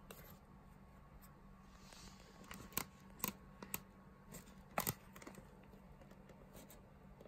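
Faint handling of an M1938 tanker helmet's leather and elastic straps by hand: soft rustling with about half a dozen small, sharp clicks and taps through the middle.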